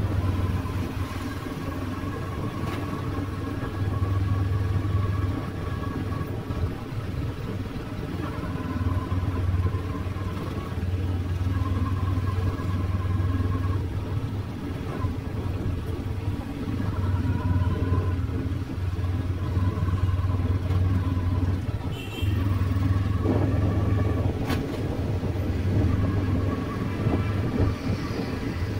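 Busy street traffic, mostly motorbikes, heard while riding along in it: a steady low engine and road rumble that swells and eases every few seconds. A couple of brief sharp sounds come past the middle.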